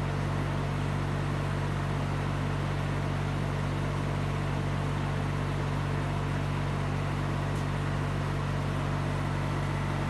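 A steady low machine hum with a faint even hiss, unchanging throughout.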